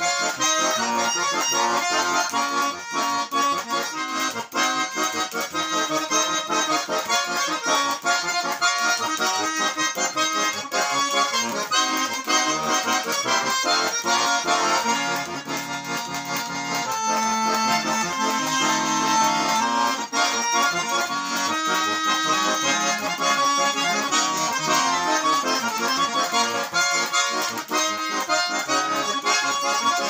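Russian garmon (a 'Lyubitelskaya' diatonic button accordion) playing a continuous melody with accompanying chords, its notes changing steadily, with some lower held notes about two-thirds of the way through.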